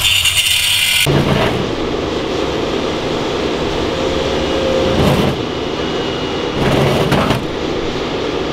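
A high-pitched whine or hiss cuts off sharply about a second in. A loud, steady engine rumble follows, with a couple of brief sharp knocks.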